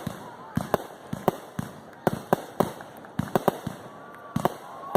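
Fireworks going off: a rapid, irregular string of sharp bangs, about three a second, with a steady whistle starting near the end.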